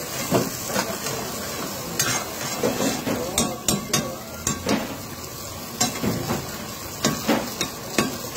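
Chicken karahi frying in a wide steel karahi over an open flame: a steady sizzle, with the metal ladle stirring and scraping and clinking against the pan many times at irregular intervals.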